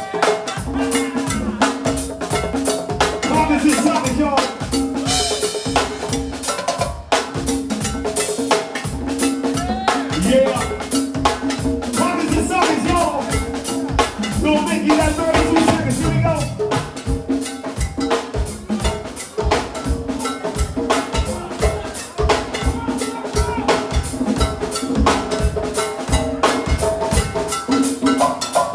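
Live band music led by drum kit and percussion playing a fast, steady groove, with sustained pitched notes from other instruments underneath.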